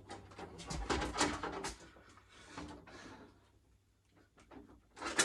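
Clicks, knocks and rustling of a shop light's power cord being handled and plugged into an outlet, busiest in the first two seconds, with one sharp click near the end.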